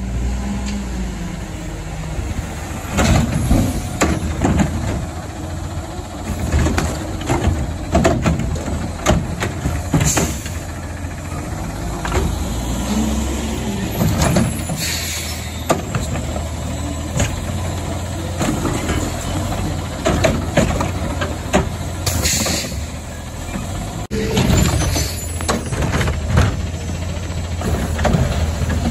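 Front-loading garbage truck with a cart-tipping arm on its front can: the diesel engine runs steadily and revs up and down twice as the arm's hydraulics lift and dump carts, with repeated metal clanks of carts banging into the can and several loud air-brake hisses.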